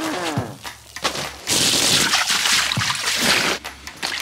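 Garden hose spraying water into an inflatable plastic kiddie pool: a steady rush of water, loudest from about a second and a half in until about three and a half seconds in. A short falling tone sounds at the very start.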